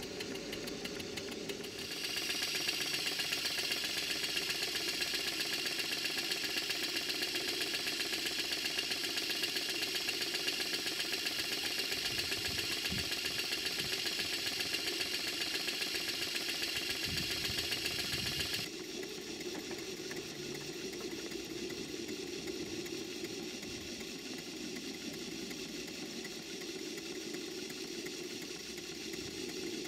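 Stuart 5A single-cylinder vertical model steam engine running on live steam, its exhaust beats chuffing in an even, fast rhythm. From about two seconds in until about two-thirds of the way through, a louder stretch carries a strong hiss of escaping steam, starting and stopping abruptly.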